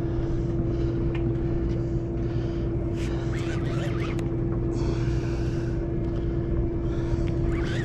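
Steady drone of the sportfishing boat's engine, holding one low pitch throughout, with a few short clicks and rattles from the rod and reel in the middle and near the end.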